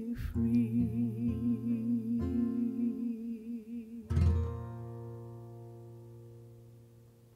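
A woman's voice holds the song's last sung note with a wide vibrato over fingerpicked steel-string acoustic guitar. About four seconds in, the guitar strikes a final chord that rings out and fades away.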